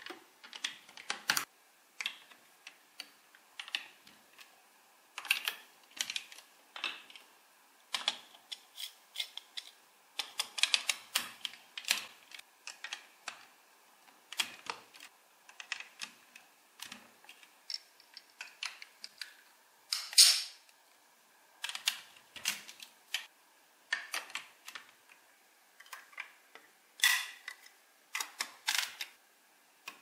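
Large plastic building blocks clicking and snapping together as pieces are pressed on by hand, with short plastic clatter between the snaps. The clicks come irregularly, several a second in bursts, a few louder snaps standing out.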